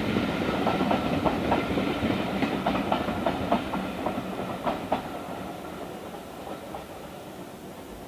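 Passenger coaches' wheels clicking in quick groups over rail joints as the tail of a train runs past, the clicks stopping about five seconds in and the rumble fading away.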